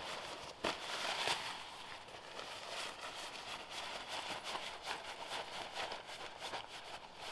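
Rustling and small clicks of gear handled at close range, with a sharp click about half a second in and a louder rustle around one second.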